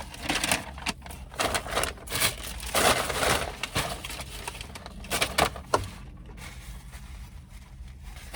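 Close-up chewing of a big mouthful of fast food: irregular crunching and wet mouth clicks, thickest in the first few seconds and thinning out after that.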